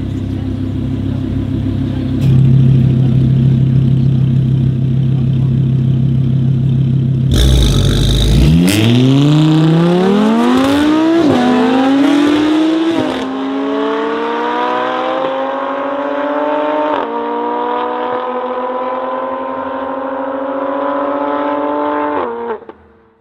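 A 650 hp BMW M3 F80 with a decatted Milltek exhaust and an Audi R8 on a drag strip start line: engines idling, then revs held steady from about two seconds in, a burst of noise at the launch, and hard acceleration through the gears, the pitch rising in each gear and dropping at upshifts roughly every two seconds as the cars pull away.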